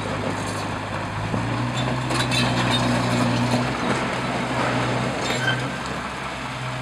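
Liebherr R 916 crawler excavator's diesel engine running steadily. Its note rises and grows stronger about a second in, holds for a couple of seconds, then eases back, with a few faint clicks.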